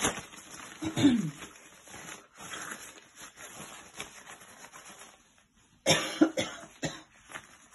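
A woman coughing: sudden coughs at the start, about a second in, and again about six seconds in.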